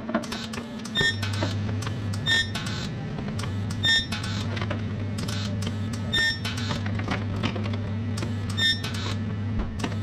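Metal striking metal: about five ringing clinks a second or two apart, each with the same bright ring, among many lighter clicks and taps. A steady low hum runs underneath.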